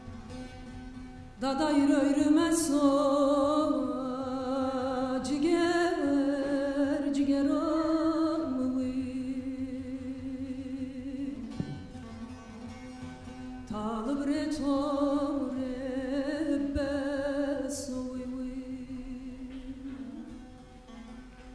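A woman singing a Kurdish Alevi song with a wavering, ornamented melody over a plucked bağlama accompaniment. She sings two phrases, the first starting about a second and a half in, the second about two-thirds of the way through, with the instrument alone in between.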